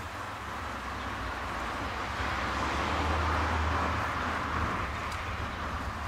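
A passing vehicle: a low rumble and rushing noise that swells to its loudest about three seconds in, then fades.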